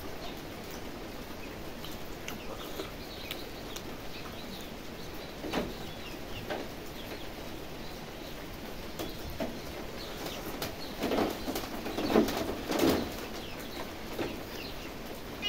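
Eating by hand: wet chewing and lip-smacking, with fingers squelching through curry-soaked rice, as a run of small irregular clicks. A few louder chewing sounds come about two-thirds of the way through.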